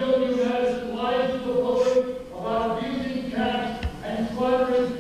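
Several voices chanting loudly in unison, sustained pitched phrases repeated over and over, with a single sharp knock just before four seconds in.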